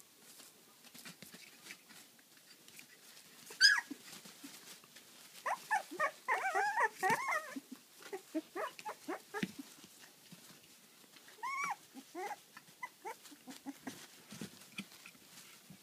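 Labradoodle puppies whining and squealing, with one sharp yelp about four seconds in, a run of overlapping high squeals a couple of seconds later, and a few more whines later on. Light clicking runs under the calls.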